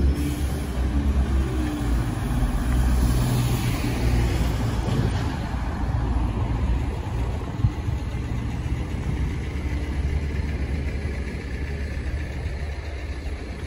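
City street traffic: a red double-decker bus's engine running, with a steady low rumble, and a car passing by a few seconds in.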